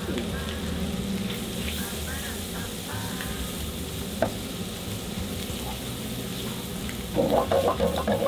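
Sliced bacon and minced garlic sizzling in oil in a nonstick frying pan, stirred with a wooden spatula. There is a single tap about four seconds in, and louder scraping and stirring near the end.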